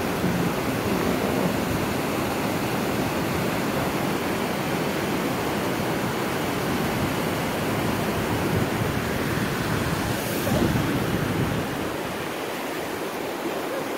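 Steady rushing of a mountain stream cascading over rocks, with a brief louder rush about ten seconds in.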